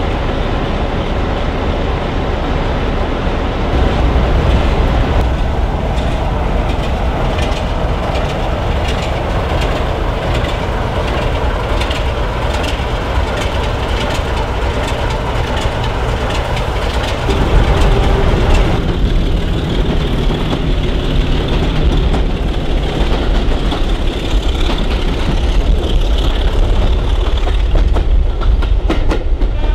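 Class 33 diesel locomotive 33109's Sulzer eight-cylinder engine running with a deep, steady throb. A little past halfway the sound changes to a train heard from an open carriage window as it rolls along, its wheels clattering on the rails.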